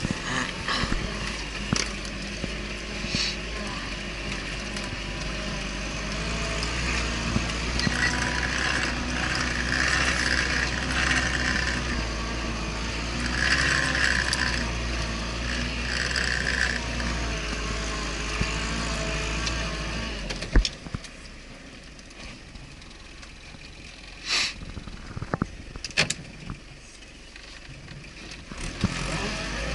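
Off-road vehicle engine running while driving, a steady low rumble with rattling noise above it. About two-thirds of the way through it drops off abruptly to a quieter stretch broken by a few sharp knocks.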